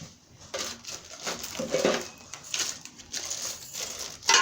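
Packaging rustling and crinkling as grill parts are handled and unpacked, with light clattering and a sharp clack near the end.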